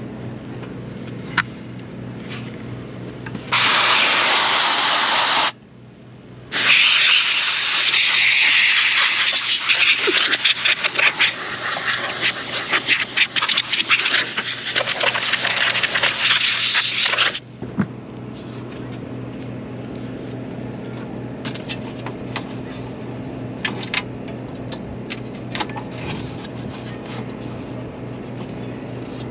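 Aerosol can of foaming coil cleaner spraying onto an RV rooftop air conditioner's coil with a crackling hiss, in two bursts: a short one of about two seconds a few seconds in, then a long one of about ten seconds. A low steady hum runs underneath.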